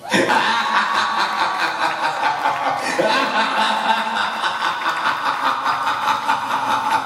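Audience applauding and cheering, a steady mass of clapping with voices mixed in.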